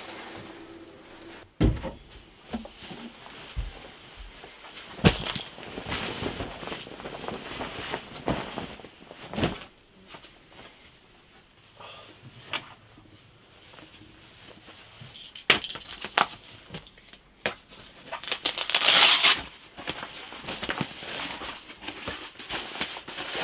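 Gear being handled and clothing put on: scattered clicks and knocks of objects picked up and set down, with fabric rustling. About three quarters of the way through comes a longer, louder rasp of fabric.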